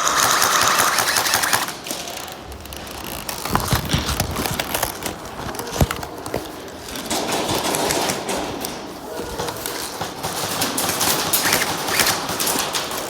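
Airsoft gun firing rapid full-auto bursts, the first and loudest lasting about a second and a half, followed by scattered clicks, a single sharp crack about six seconds in, and further bursts.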